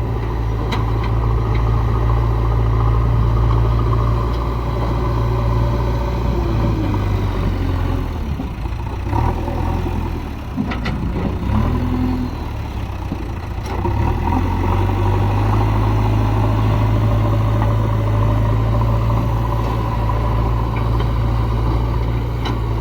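Diesel engine of a JCB backhoe loader running steadily under work, its pitch and load shifting for a few seconds in the middle, with a few sharp knocks.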